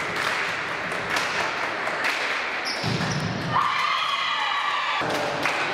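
Indoor volleyball play in a reverberant sports hall: sharp ball hits stand out against a steady background of hall noise. About three and a half seconds in, a held high-pitched tone sounds for over a second.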